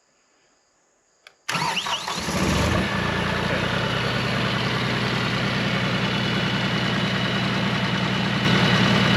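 Cooks AC-36 sawmill's diesel engine cranking and catching about a second and a half in, after a small click, then settling into a steady idle. It gets a little louder near the end.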